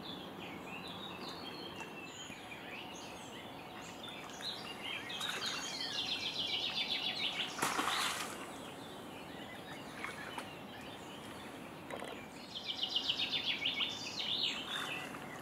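Songbirds chirping over a steady outdoor hiss, with two stretches of rapid trilling. About eight seconds in comes a brief splash as a hooked carp thrashes into the landing net.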